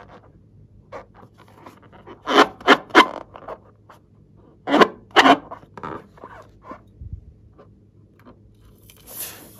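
Fingers rubbing and squeezing a slime-filled rubber balloon, giving short rubbery squeaks and scrapes in two loud clusters, about two seconds in and about five seconds in, with smaller ones after. Near the end comes a short sharp snip as scissors cut the balloon's tip.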